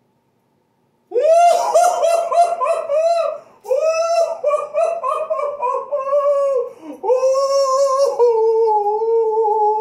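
A man's excited, high-pitched falsetto yelling: a rapid string of short whooping cries, about four a second, starting about a second in, then two long held cries near the end. It is a celebration of pulling a rare autographed card.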